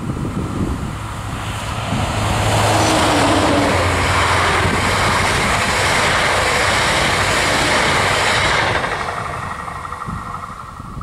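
Passenger train passing close at speed: the rumble and wheel-on-rail noise swell as it approaches and stay loud for about six seconds. The sound drops off about nine seconds in as the last coaches go by.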